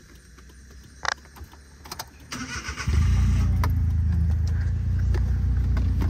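A car engine being started: a few clicks, then a brief crank of the starter about two seconds in, and the engine catches and runs steadily at idle.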